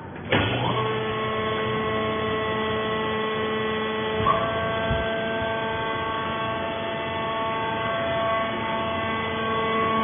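The motor-driven hydraulic power unit of a vertical sisal-fibre baler starting abruptly, whining briefly up to speed, then running with a steady hum under load. A short knock sounds a little over four seconds in.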